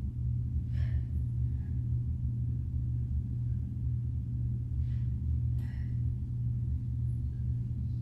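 A steady low hum, with a few short breathy exhales from a woman doing sit-ups: one about a second in and two close together around five to six seconds in.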